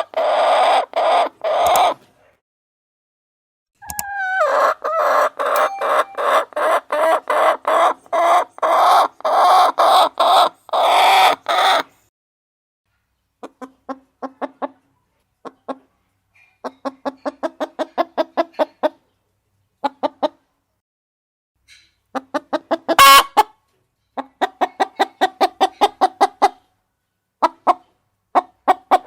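Golden Buff hen clucking in fast runs of short clucks, about four or five a second, in bursts broken by silent gaps. The loudest, densest runs come in the first half, and quieter runs of clucks follow.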